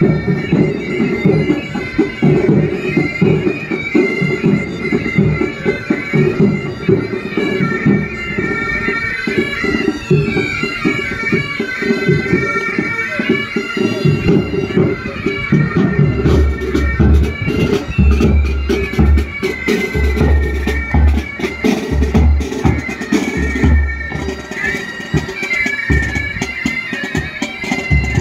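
Military pipe band playing: massed bagpipes carry a tune over their steady drones, with snare and bass drums keeping time. The drums come through more strongly about halfway through, with heavy bass-drum beats.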